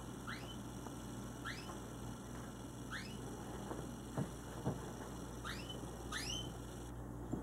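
Domestic canary giving short rising call notes, five in all, a second or so apart. Two soft knocks come midway.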